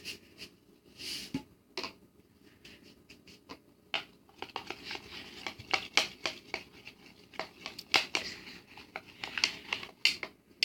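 A mixing spoon clicking and scraping against a bowl in quick, irregular strokes while stirring a thickening hand-soap and salt slime mixture. The strokes come thicker from about four seconds in.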